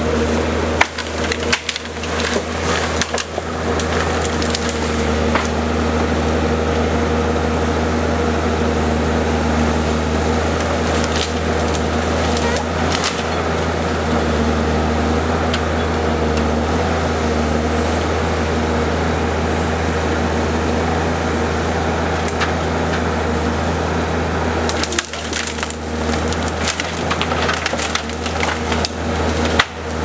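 Forestry forwarder's diesel engine running steadily while its hydraulic crane grapple handles brushwood, with branches cracking and snapping, most of it in the first few seconds and again near the end.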